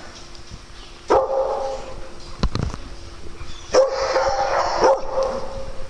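Dogs barking in play: one sharp bark about a second in and two more later, a second apart.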